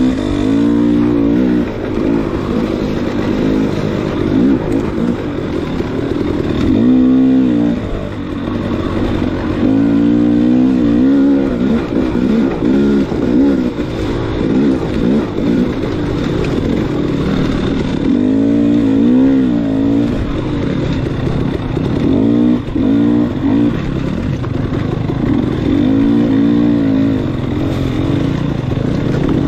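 Enduro dirt bike engine revving, its pitch climbing and dropping back again and again as the throttle is opened and closed over rough ground.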